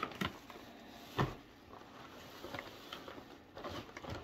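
Faint handling of grocery packages being unpacked: a few soft knocks and rustles, the clearest one about a second in.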